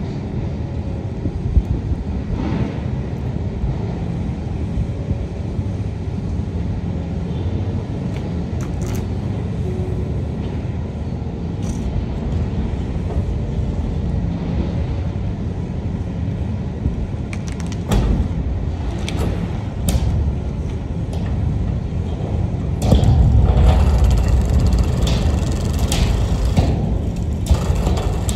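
Hitachi ZX1000K high-reach demolition excavator's diesel engine running steadily under load, with scattered sharp metallic clanks and bangs as its Fortress FS45R shear works on steel. About 23 seconds in comes a louder spell of crashing and clanging lasting several seconds.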